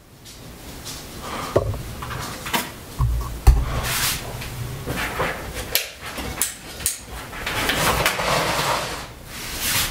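Handling noise from a Viltrox DC-50 camera monitor's folding plastic sun hood as its flaps are opened out: scattered clicks, knocks and rubbing, with a couple of dull thumps about three seconds in.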